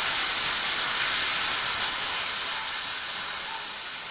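Compressed air hissing steadily from an air-hose blow gun pressed into a car's cooling system to blow the coolant out, slowly fading.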